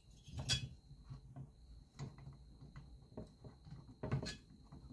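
Light metallic clicks and taps as the cylinder of a Husqvarna 365 chainsaw is rocked by hand to lift it off the crankcase, with two louder knocks, about half a second in and again near the end.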